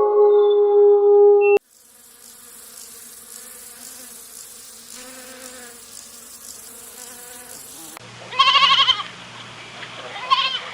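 A goat bleating: a loud, wavering bleat about 8 seconds in and a shorter one near the end. Before it comes a faint insect buzz lasting several seconds, and at the start a sustained pitched tone that cuts off abruptly.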